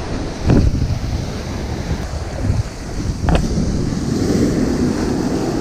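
Ocean surf washing on the beach, with wind buffeting the microphone and two brief knocks.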